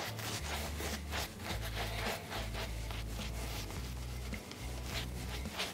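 Badger-hair shaving brush (Simpson Commodore X3) rubbing lather onto a stubbled face in quick repeated strokes, a brushy scratching.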